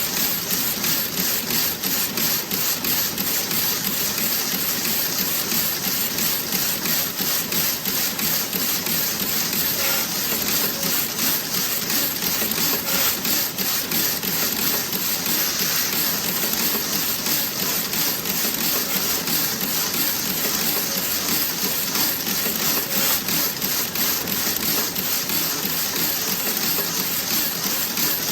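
Toe-sock knitting machine running: a steady, even rhythm of rapid mechanical clicks over a dense hiss.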